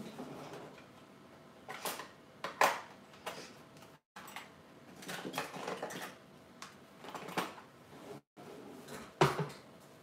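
Metal cutlery clinking and rattling as a utensil tray is searched for a knife, a run of separate sharp clinks and knocks. The sound cuts out completely twice for a moment.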